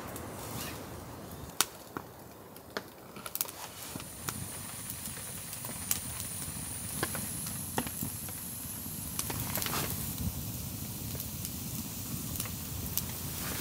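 Small wood campfire of logs and twigs crackling, with irregular sharp pops over a steady hiss.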